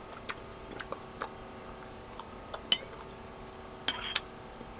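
A metal spoon clinking and scraping against a porcelain soup bowl: a handful of light ticks, one sharp clink with a short ring about two and a half seconds in, and a brief scrape with ringing near the end.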